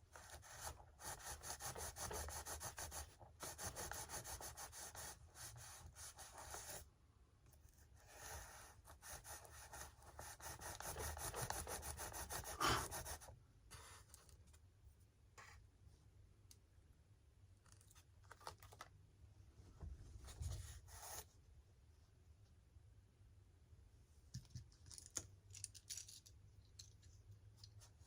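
Rubbing and scraping from hand work on a model airplane, in two long stretches with a short pause between them, then scattered light clicks and taps for the second half.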